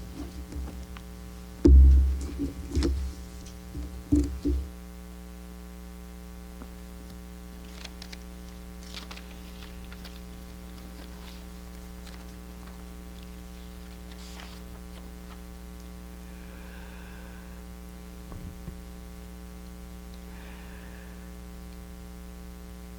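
Steady electrical mains hum. Several heavy low thumps fall in the first four or five seconds, the loudest about two seconds in, and after them come only faint scattered clicks and rustles.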